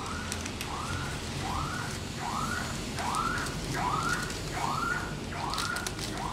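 Two-sided bouquet wrapping paper crinkling and rustling as it is folded around a floral-foam core. Over it, a repeating whooping tone rises and falls about once every 0.8 seconds.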